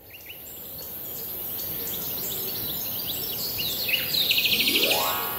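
Birds chirping over a steady high-pitched insect drone, swelling up over the first second or so. About four seconds in a rapid trill joins, and near the end a rising tone sweeps upward.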